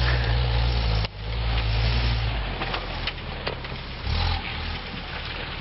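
Pickup truck engine running at high revs, then dropping off sharply about a second in and carrying on at low revs, with a brief rise in revs near the end.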